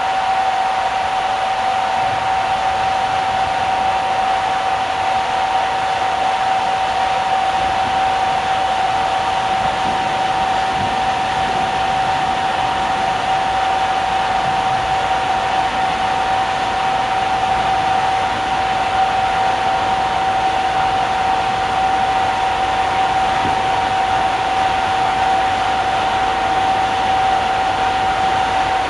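Steady mechanical hum of a ferry's machinery and ventilation, with a constant mid-pitched whine over an even rushing noise.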